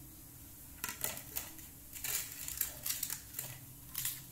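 Ingredients and fingers working through rice-flour batter in a stainless steel bowl: scattered soft scrapes and light clinks against the steel, several in a row, spaced about half a second to a second apart.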